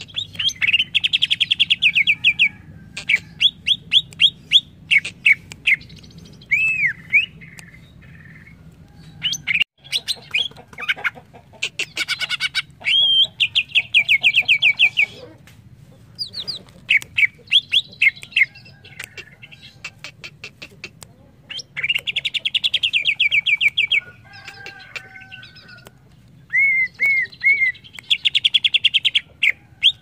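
Green leafbird (cucak ijo) singing: fast runs of sharp, rapidly repeated chirping notes, each run lasting a second or two, broken up by a few short arched whistles.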